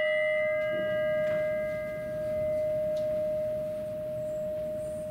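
A struck bell ringing on after a single strike. Its low tone holds steady and slowly swells and fades in loudness, while its higher tones die away within about two seconds. It is the remembrance bell rung after each name is read.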